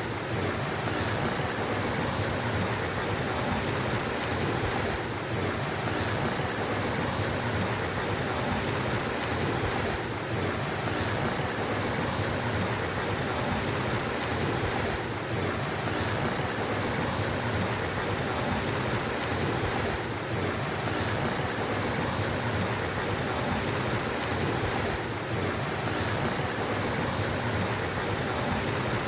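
Steady sound of running water flowing over rocks, an even, unbroken rush.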